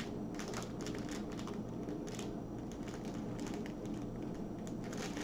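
Soft, irregular crinkling of a clear plastic bag holding small packets of diamond-painting drills as it is handled.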